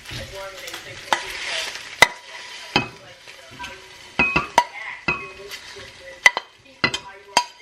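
A metal utensil stirring and scraping food in a dish, clinking sharply against it a dozen or so times with short ringing knocks. The scraping is heaviest in the first two seconds.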